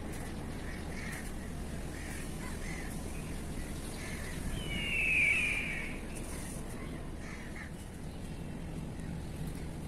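Birds calling: a series of short, harsh calls, with one louder call that falls in pitch about five seconds in, over steady background noise.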